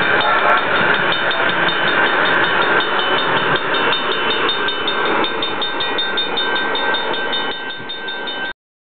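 Level-crossing warning bell ringing in a rapid, steady series of dings over the running noise of a passing light-rail train. The sound cuts off suddenly near the end.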